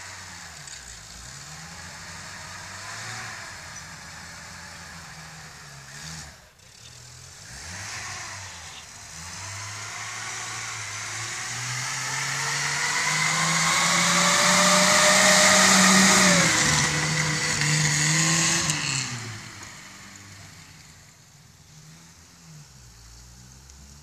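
Car engine revving under acceleration: after some uneven lower running, the revs climb steadily over several seconds to a loud peak about two-thirds through, then drop back and the sound fades.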